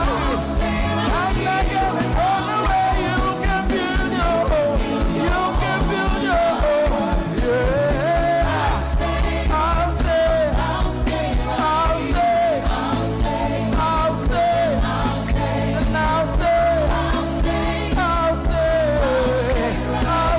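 Live gospel worship band music: a melodic lead line sliding up and down over sustained chords, a bass line and a steady drum beat.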